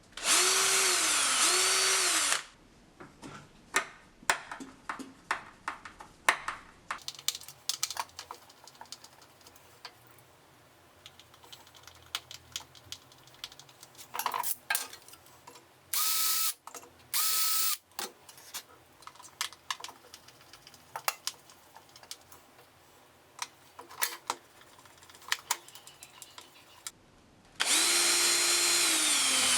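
Cordless drill running in bursts, its motor whine dipping and recovering in pitch: a two-second run at the start, two short runs midway and another two-second run near the end. Clicks and knocks of handling fall in between.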